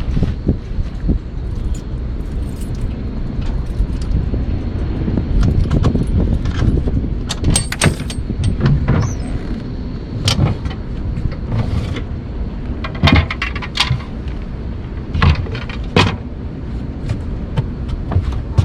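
Steady low wind rumble on the microphone, with a scatter of sharp clicks and knocks from handling, the loudest around the middle and about three quarters of the way through.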